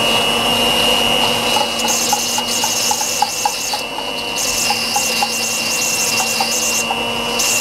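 Electric hand mixer running at medium speed, its beaters whirring through a thick butter, sugar, egg and condensed-milk batter in a stainless steel bowl, with a steady high whine. Light ticks against the steel bowl come about three a second in the middle.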